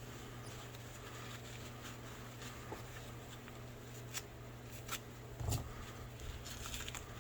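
Quiet handling noise from knives and their packaging being picked up and sorted: a few light clicks and taps over a steady low hum.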